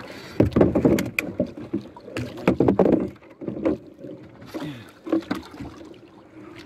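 Water splashing and sloshing against a small outrigger boat, with irregular knocks and thumps from a wooden paddle and gear being handled aboard.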